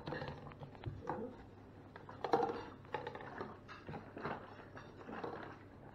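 Light clicks, taps and clatter of plastic cups and kitchen items being handled at a counter, as short irregular knocks with a few louder moments.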